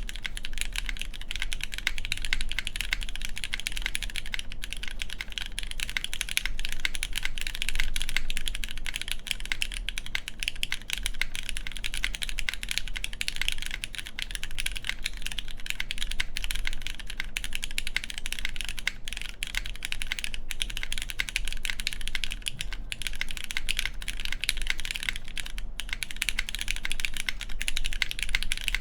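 A steady stream of keystrokes typed on a custom 60% mechanical keyboard (Antipode Studio Pneuma Mk.2/60) with lubed Cherry MX Black Clear Top linear switches, GMK keycaps and a full aluminium plate. The spacebar sits on lubed screw-in stabilizers with no gasket under it.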